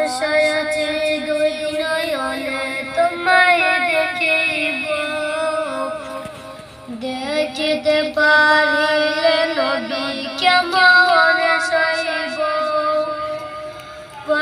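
A boy singing a Bengali Islamic gojol (devotional song), two long melodic phrases with a brief break about seven seconds in.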